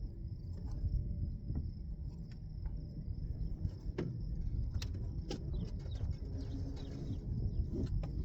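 Scattered clicks and handling noise from hands working on engine coil wiring, over a steady high insect trill.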